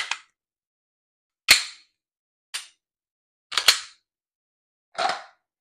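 Pistol being handled with its magazine out: about five sharp metallic clicks and clacks, roughly a second apart, the loudest about a second and a half in.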